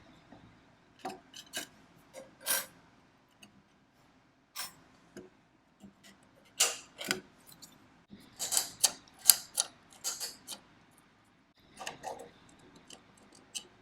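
Webb-style adding machine (a Lightning calculator) being worked: irregular sharp clicks and ticks of its counting wheels and Webb's 1889 carry mechanism, some single and some in quick clusters.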